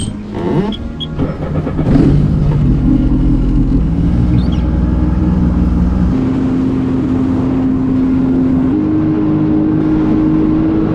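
Jet ski engine running at speed on the water, its pitch stepping up twice as it accelerates.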